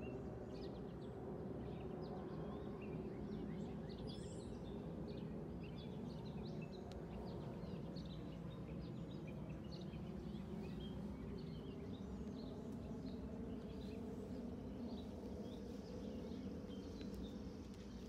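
Birds chirping outdoors, many short calls throughout, over a steady low background rumble.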